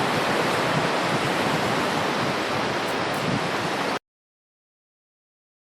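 Steady rushing noise of hurricane wind and heavy rain, cutting off to dead silence about four seconds in.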